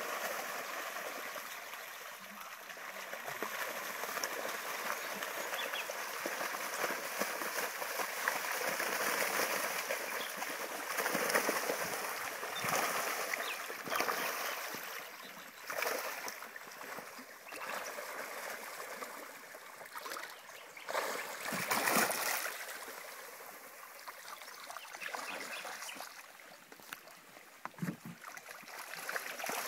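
Spawning carp thrashing and splashing at the surface of shallow water: a steady wash of water noise broken by several sudden, louder splashes.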